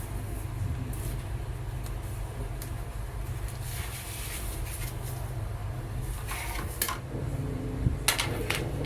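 Steady low hum with a few brief rustling clicks, the loudest about six to seven seconds and eight seconds in, from hands handling a tempered-glass screen protector and its packaging.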